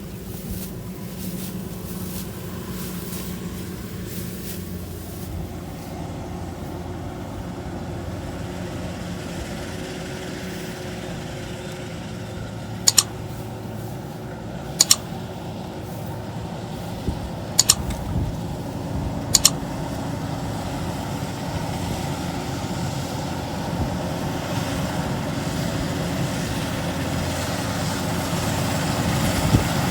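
Kubota rice combine harvester's diesel engine running steadily, growing a little louder near the end. Four short sharp clicks come in the middle.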